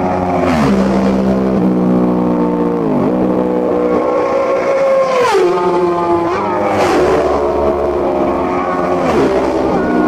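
Racing motorcycles passing at full speed one after another, each engine's high pitch held and then dropping sharply as it goes by, about five times, with a brief rush of air at the loudest passes.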